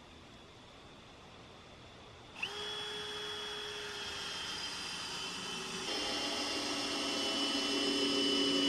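Cordless drill running under load into an 8x8 timber post, starting a couple of seconds in with a steady whine that gets louder about halfway through, then winding down as the trigger is released.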